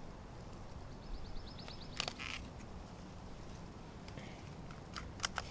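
Quiet outdoor ambience, with a short, high, rapid trill about a second in and a few sharp clicks near the end.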